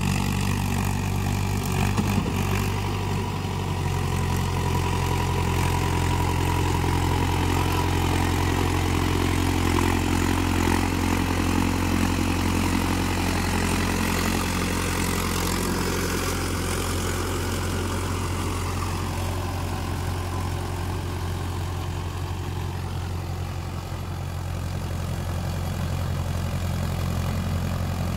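Mahindra Yuvo 585 tractor's four-cylinder diesel engine running steadily under load as it drives a rotavator through wet paddy mud.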